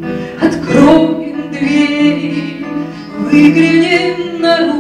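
A woman singing long held notes to her own acoustic guitar.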